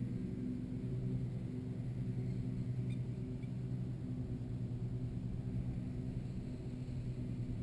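Steady low hum with several tones stacked together, over wind rumbling on the microphone.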